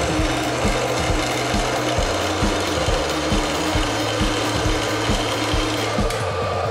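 Metal-cutting bandsaw running, its blade cutting through a steel plate fed by hand.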